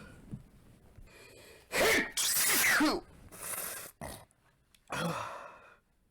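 A man sneezing: soft gasping breaths build up, then a loud voiced sneeze about two seconds in, followed by heavy breaths.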